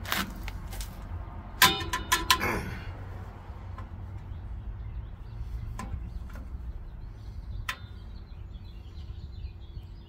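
Steel hand tool clinking and scraping against the shoe springs and hardware of a 1983 Dodge D150's rear drum brake, a quick run of metallic clinks with short ringing about two seconds in, then scattered single clicks.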